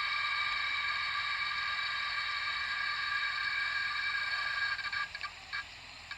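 Household water pipe giving off a steady high whine made of several tones at once, which fades about three-quarters of the way through and breaks up into short, irregular ticks and stutters.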